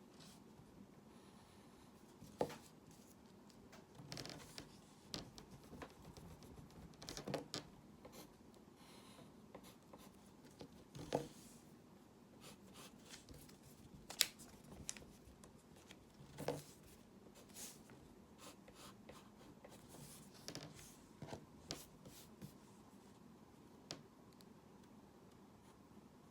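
Faint drawing sounds: a pen or stylus making short scratchy strokes and sharp taps on the drawing surface, a dozen or so scattered irregularly over a low background hiss.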